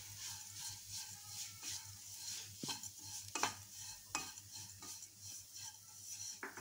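Rolled oats being stirred and turned with a wooden spatula in a non-stick pan as they roast in ghee: a soft scraping shuffle with a few light knocks of the spatula on the pan and a faint sizzle.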